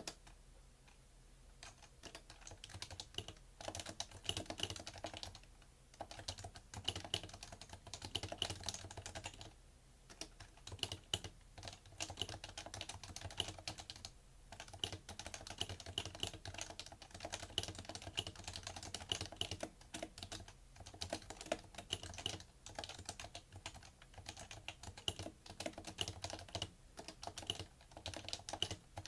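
Typing on a PFU Happy Hacking Keyboard Professional2 with Topre capacitive switches: a steady, fast run of soft key strokes, with brief pauses a few times.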